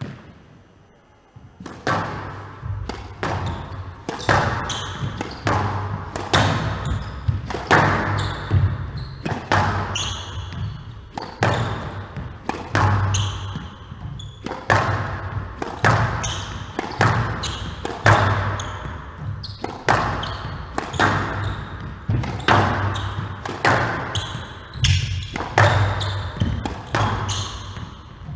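Squash rally: the ball is struck by rackets and smacks off the court walls again and again, sharp hits roughly every half second to second, each ringing in the large hall. The rally starts about two seconds in, after a short hush.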